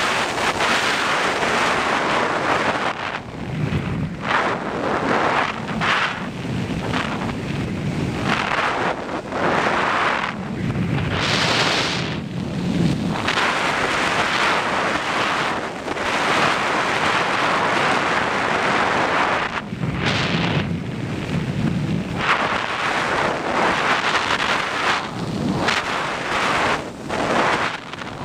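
Rushing airflow over the onboard camera microphone of a Skywalker RC plane in flight, rising and falling in gusts every second or two as it descends.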